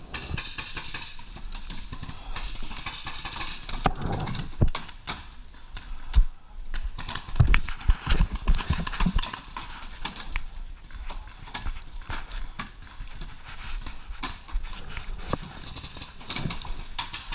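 Movement noise from a player's body: footsteps and knocking of gear, with a hiss of wind or rubbing on the head camera. The knocks come thickest and loudest in the middle.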